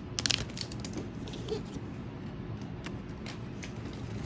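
Pokémon trading cards being handled: faint scattered clicks and rustles, most of them in the first second and a half.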